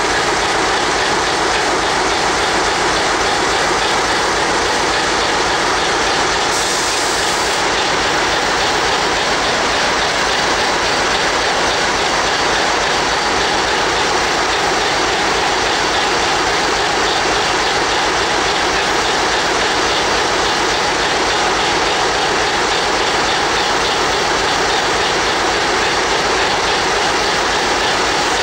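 Standing locomotive running, a loud, steady, even rushing noise with no separate knocks or beats.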